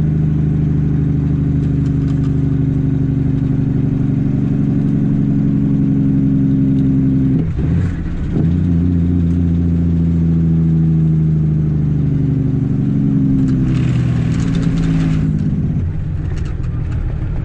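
Caterpillar C13 inline-six diesel in a Kenworth W900B dump truck, running under way with its pitch slowly sagging. About seven and a half seconds in there is a brief break, as at a gear change. A short burst of air hiss comes near the end.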